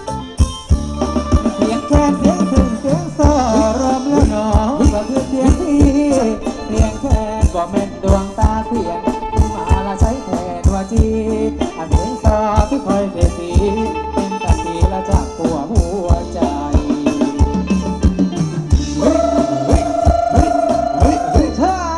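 A live Thai ramwong dance band plays its music: a steady, quick drum beat with a sustained melody over it.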